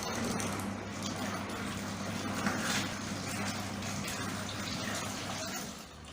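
Water poured from a bucket into the tub of a Mito WM1 mini washing machine, a steady gush that stops shortly before the end.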